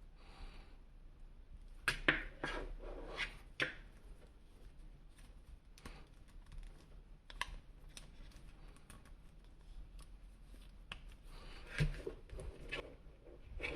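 Hands handling plastic toy packaging and action-figure parts: scattered clicks, scrapes and crinkles, busiest about two seconds in and again near the end.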